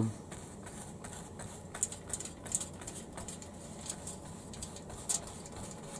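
A paintbrush dabbing and scrubbing paint onto the plaster-cloth river bed of a model diorama: irregular light taps and scratches, with a few louder ones.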